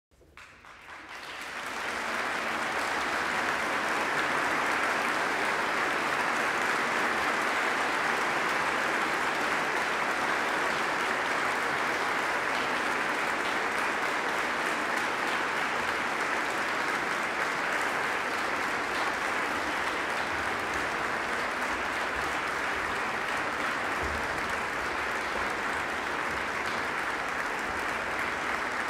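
Concert audience applauding, fading in over the first two seconds and then holding steady.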